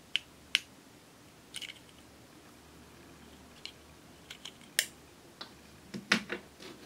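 A thin metal spatula scraping and tapping at pressed eyeshadow in a metal compact, breaking up the powder: scattered sharp clicks and ticks, with a quick cluster of knocks about six seconds in.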